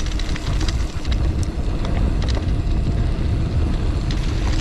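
Gravel bike coasting fast downhill on a dirt singletrack: wind rushing over the microphone and the knobby tyres rolling on dirt, with many small irregular clicks and rattles from the bike over the bumps.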